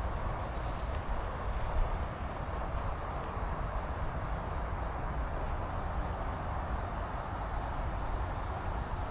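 Wind blowing steadily, a broad rushing hiss with a low rumble of wind buffeting the action camera's microphone.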